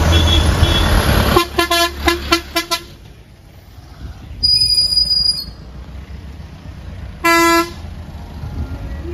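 A vehicle's engine rumbles as it passes close by. Then comes a quick run of about six short horn toots, a high-pitched beep lasting about a second near the middle, and one more short horn toot about seven seconds in.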